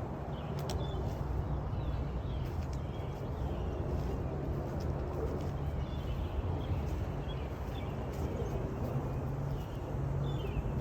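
Pressure washer running steadily: a low engine hum under the hiss of the water spray.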